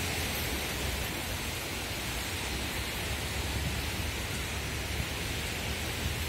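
Steady rushing noise of wind blowing across the microphone, with a low rumble underneath and no distinct events.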